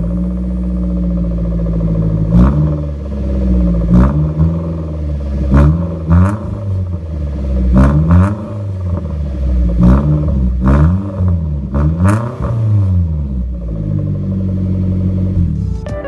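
Small car engine breathing through an HKS aftermarket muffler, idling and then blipped up and down about ten times in quick succession before settling back to idle.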